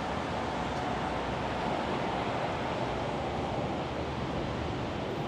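Steady city traffic noise: an even hiss with no distinct sounds standing out.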